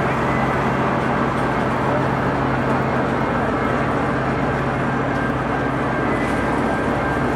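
Freight train of auto-rack cars rolling slowly past: a steady rumble of wheels on rail, with faint thin high tones above it.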